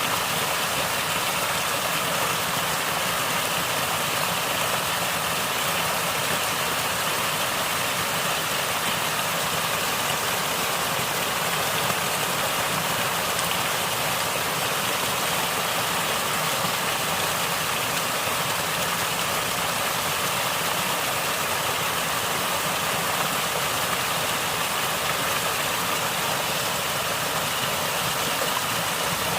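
Natural stream water flowing and gurgling, a steady even rush that does not change.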